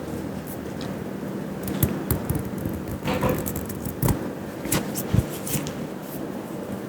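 A barber's hands smacking and tapping on a head during an Indian head massage: about six sharp smacks at uneven intervals, over a steady low hum.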